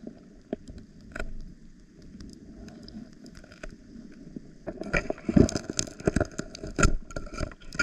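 Scraping and knocking on shoreline rock as a sea snail is prised off: a few faint clicks at first, then a louder run of scrapes and sharp knocks from about five seconds in.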